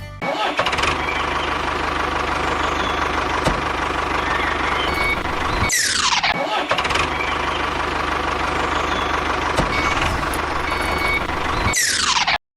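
A steady engine-like mechanical running sound, broken twice by a sharp falling sweep (about halfway through and near the end), after each of which the running sound starts again.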